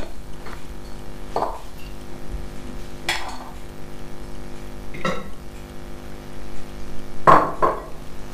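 Spoon scraping puréed beetroot out of a small bowl into a pot of water heating on the hob: four short clinks of spoon on bowl and pot, a couple of seconds apart, over a steady low hum.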